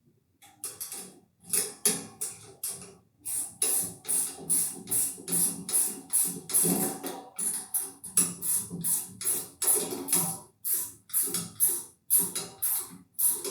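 Socket ratchet being worked back and forth to tighten a nut on the antenna's mounting bracket: a steady run of short ratcheting bursts, about two or three a second.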